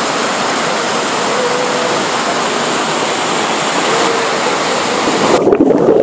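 Waterfall water rushing over rocks, a steady, loud rush of white water. About five seconds in, the sound turns muffled and bubbly, losing its hiss, as the microphone dips under the water.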